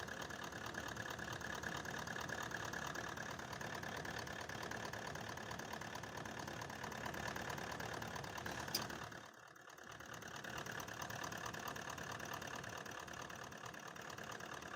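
Toyota 1VD V8 diesel engine idling steadily with a misfire: the cylinder seven injector is not working, since cutting its fuel makes no difference to the engine. About nine seconds in there is a click, then the sound drops away for about a second before the idle returns.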